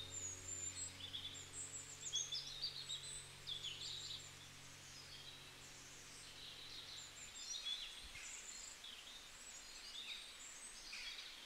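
Wild birds chirping and twittering outdoors: many short, high calls in quick succession, faint overall, over a soft steady low hum that stops about seven seconds in.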